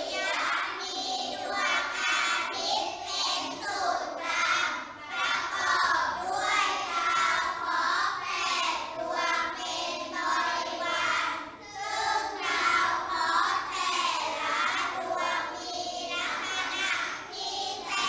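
A group of children reading a Thai text aloud in unison, with a brief pause partway through.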